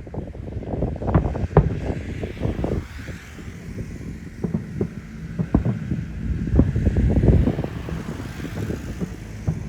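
Aerial fireworks bursting overhead in a dense, irregular run of booms and bangs, with wind buffeting the microphone.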